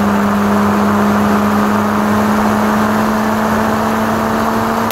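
Steady wind rush from the slipstream of a moving car, striking an old pedestal fan held out of the car window, with a steady low hum underneath.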